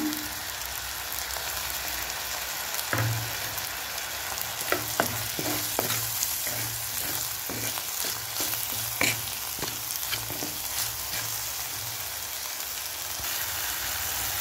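Chopped onions, green chillies and tomatoes sizzling in oil in a clay pot. From about three seconds in, a wooden spatula stirs them, scraping and knocking against the pot in many short clicks.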